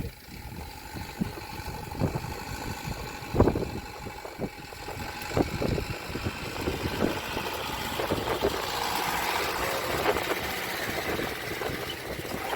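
Vehicle engine idling steadily, with several short knocks over it, the loudest about three and a half seconds in.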